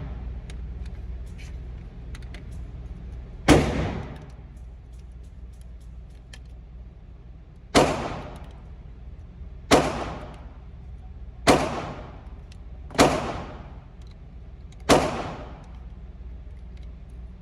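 Six single pistol shots from a 9mm Glock 19, fired slowly one to four seconds apart, each with a short echoing tail.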